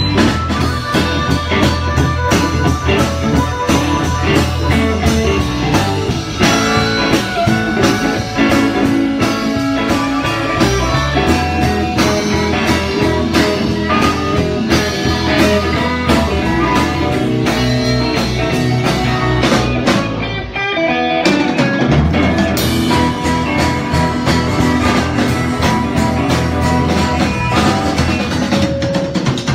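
Live rock band playing: electric guitar over a steady drum beat. About two-thirds through, the beat and low end stop for a moment, then the band comes back in.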